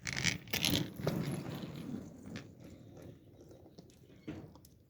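Skateboard wheels rolling over rough ground with a gritty rumble. It starts with a couple of knocks and dies away over about three seconds as the board slows.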